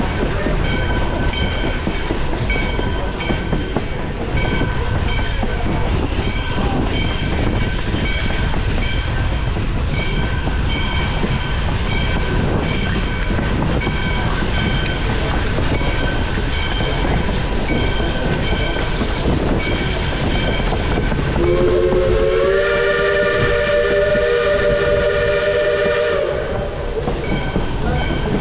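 Train rolling along with a steady rumble and clickety-clack, a bell ringing about once a second for most of the time. About three-quarters of the way through, the chime steam whistle of Little River Railroad 4-6-2 #110 blows one long blast of about four and a half seconds, rising slightly in pitch as it opens.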